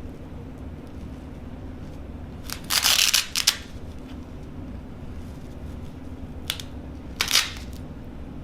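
Y-strap chiropractic pulls on a lying patient's spine: a cluster of cracking pops about three seconds in, a single click, then a shorter burst of cracks near the end.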